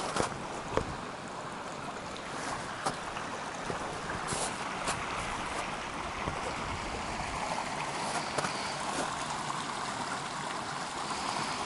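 A small mountain trout stream running through snowy woods: a steady rush of water, a little fuller after a few seconds, with a few scattered sharp clicks.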